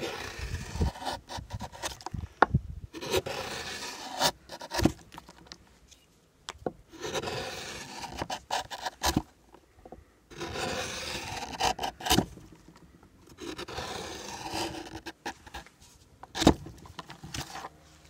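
Large klyukarza, a hooked bowl-carving knife, cutting through the wood of a bowl's hollow in long scraping strokes that peel off curled shavings: about five strokes of a second or two each, with short sharp knocks and clicks between them.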